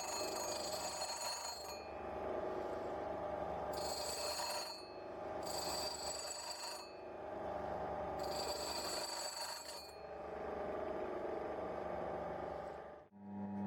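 Homemade benchtop lathe running, with a steady hum and a high ringing whine that cuts in and out every couple of seconds. It stops suddenly near the end.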